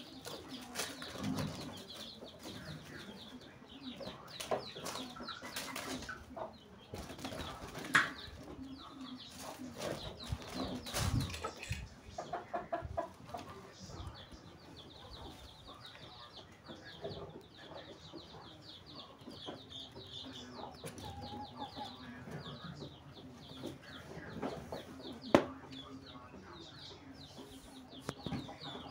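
Farmyard background of birds chirping and clucking, with scattered rustles and knocks; the sharpest knocks come about 8 and 25 seconds in.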